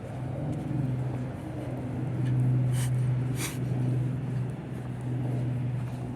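Construction machinery engine running at a steady low hum, with two short, sharp hissing sounds about halfway through.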